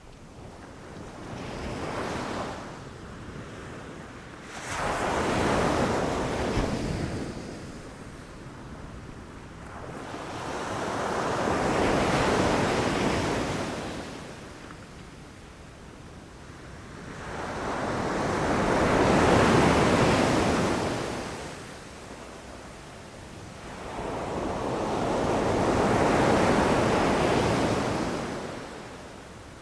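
Ocean surf breaking on a beach: a rushing wash that swells and falls away in slow surges, a small one near the start and then four large ones about seven seconds apart.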